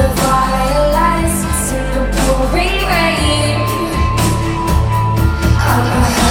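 Live concert performance of a pop song: a female lead singer over a band with a heavy, pulsing bass.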